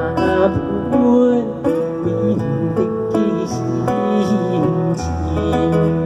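Live acoustic music: plucked strings, guitar-like, playing a melody with notes that slide and bend, over a sustained low bass.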